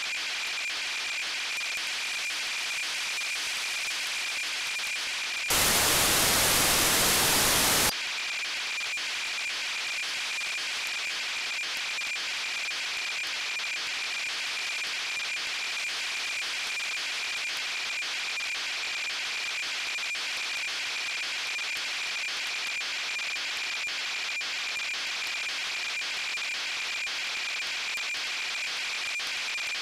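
Satellite radio signal from Cosmos 2499 on 435.569 MHz received on a software-defined radio: an unmodulated carrier heard as a steady high tone over receiver hiss. About five seconds in, a louder burst of static covers it for about two and a half seconds, then the steady tone and hiss return.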